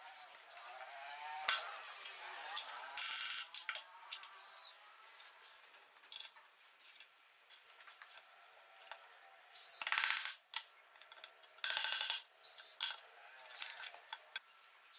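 Metal lathe parts being handled and fitted by hand: scattered clinks and scrapes, with four short bursts of rapid clicking, two of them near the end.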